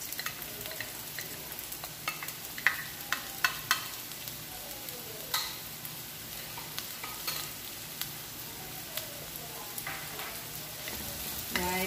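Diced white onions and garlic sizzling in hot oil in a wok, with several sharp taps against the pan, the loudest about two to four seconds in, and spatula stirring near the end.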